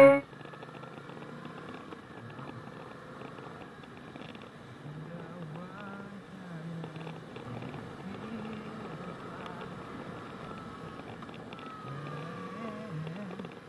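Yamaha XSR700's 689 cc parallel-twin engine running as the motorcycle is ridden along, its pitch rising and falling several times with throttle and gear changes, over a steady rush of wind noise.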